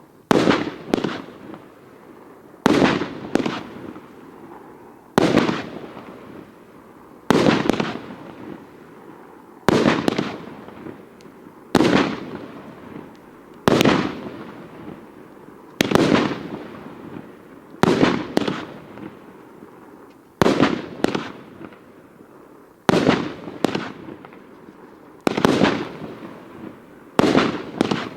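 A 146-shot consumer firework barrage (cake) firing. A sharp bang comes about every two seconds, some in quick pairs, and each fades over about a second.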